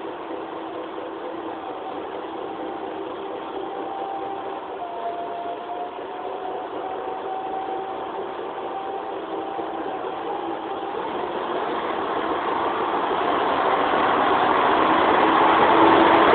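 Nagara 300 series diesel railcar pulling out of the station, its engine running under power. The engine grows steadily louder over the last few seconds as the car draws near and passes close by.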